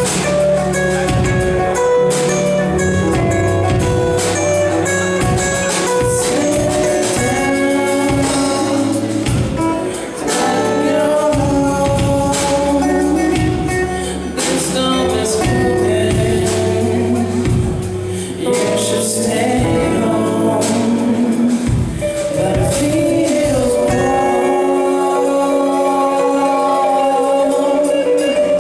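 A live band playing a song: a male lead singer with a group of backing singers over drum kit and electric guitar. Near the end the drums and bass drop out, leaving held sung notes and sustained chords.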